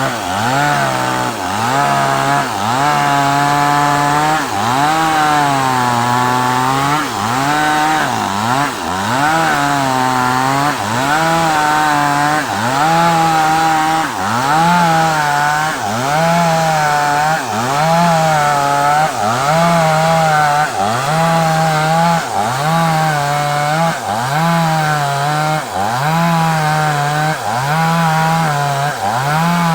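Two-stroke chainsaw cutting through a large sengon log, its engine pitch dipping under load and recovering in a steady rhythm about every second and a half.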